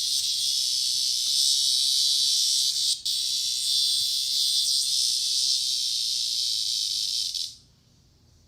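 A cicada held by a cat buzzing loudly and continuously, a harsh high-pitched buzz. It breaks off for an instant about three seconds in, then cuts out suddenly near the end.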